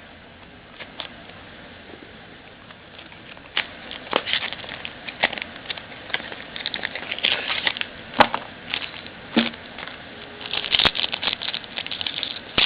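Baseball cards and a foil card-pack wrapper being handled, making quick light crinkles and clicks. They start about three seconds in and grow denser towards the end.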